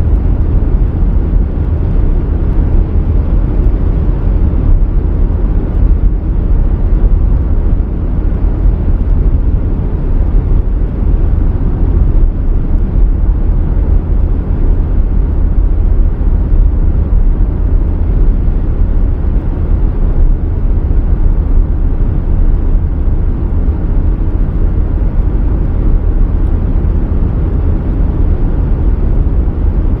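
A car driving in the rain: a steady low rumble of road and engine noise, with an even hiss of tyres and rain over it.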